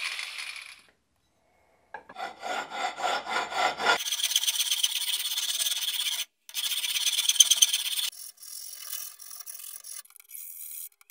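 Scraping and rubbing on a metal workpiece in several short edited pieces. A fast run of strokes comes about two seconds in, then steadier scraping with a brief break, then fainter scratching near the end.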